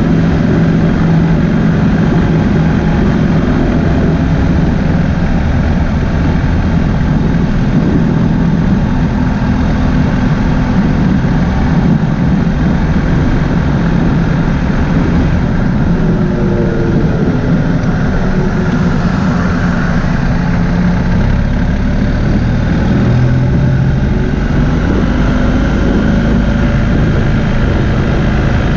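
BMW R1250GS boxer-twin engine running steadily at cruising speed, mixed with even wind and road noise.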